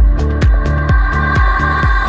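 Electronic dance music with a steady kick drum, about four beats a second, under a held synth tone.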